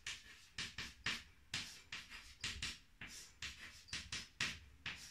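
Chalk on a blackboard as branches and letters are written: a run of short, irregular strokes, a few a second.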